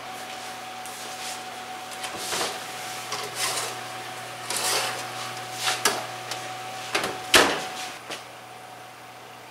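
Oven door opened and a metal cookie sheet pulled out across the oven rack: a series of clanks and scrapes, the loudest about seven seconds in, over a steady hum.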